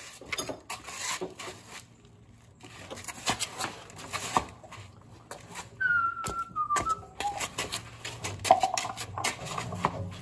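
Clicks, knocks and rustling of generator wheel parts being handled and fitted onto the axle. A short falling squeak sounds about six seconds in.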